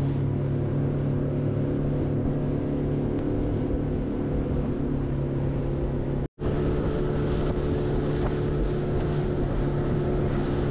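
Fishing boat's outboard motor running steadily at cruising speed, a constant engine drone with wind and spray noise from the hull. The sound cuts out for an instant about six seconds in, then the same drone continues.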